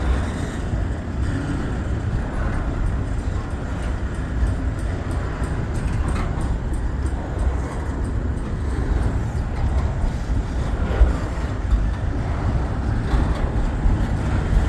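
Norfolk Southern freight trains rolling past on the double track, one eastbound and one westbound, a steady rumble of wheels on the rails.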